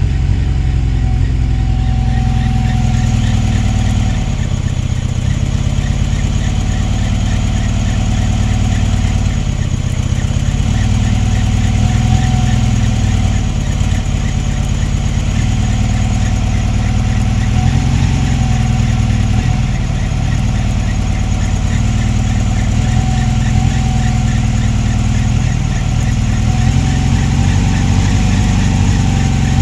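Dodge Ram pickup's engine idling steadily with the hood open, with a faint steady whine and a light, rapid, even ticking over it.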